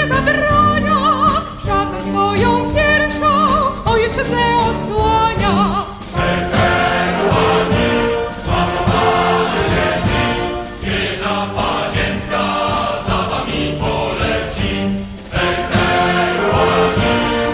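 Background music: a song with a single voice singing with vibrato over the first few seconds, then a fuller choir with instrumental accompaniment and a steady beat.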